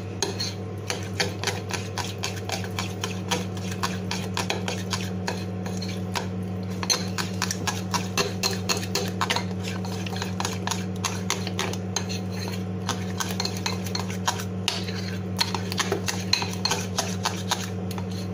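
Metal spoon stirring a thick mix of melted dark chocolate and sour cream in a glass bowl, with many quick clinks and scrapes against the glass, over a steady low hum.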